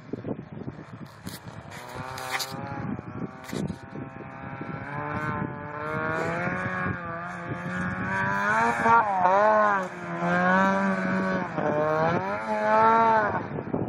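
Arctic Cat F7 snowmobile's two-stroke engine revving, growing louder as the sled comes closer, its pitch rising and dipping again and again with the throttle.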